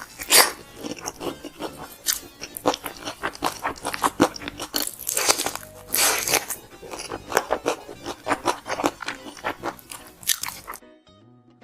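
Close-miked crunching and chewing of crispy fried chicken, many sharp crunchy bites in quick succession. The eating stops near the end, leaving soft piano background music.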